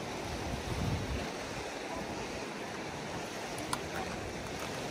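Steady rushing of a river's flowing current, an even wash of water noise, with a faint click about three-quarters of the way through.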